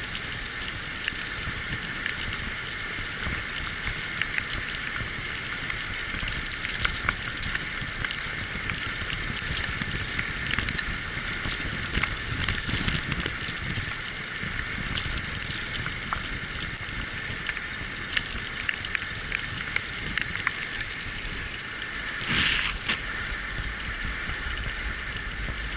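Wheels of a dog-team rig rolling fast over a forest trail behind a six-dog team: a steady rattle and crunch with scattered small clicks.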